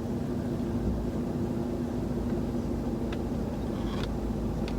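Steady low hum inside a parked car's cabin, with a constant drone and a low rumble, and a few faint clicks near the end.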